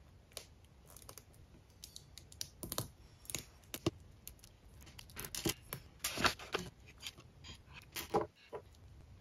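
Tiny plastic micro building bricks clicking and tapping as they are pressed together and picked from a pile on a desk: irregular small clicks, a few louder snaps among them.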